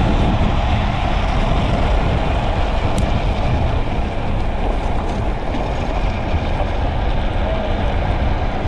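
Steady rush of wind over the camera microphone at about 55–63 km/h, mixed with the rolling rumble of a speed trike's wheels on asphalt as it coasts downhill.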